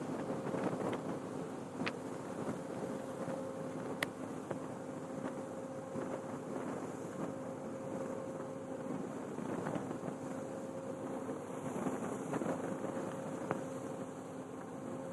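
Wind and sea noise aboard a ship rolling in heavy weather, under a steady low machinery hum, with a few sharp clicks or knocks of things shifting.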